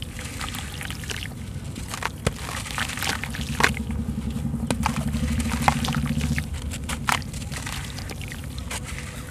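Soaked sand-cement lumps crumbled by hand over a basin of water: sharp crunching and crackling as they break, with wet grit pouring and splashing back into the water. A low hum comes up in the background about three seconds in and stops about six and a half seconds in.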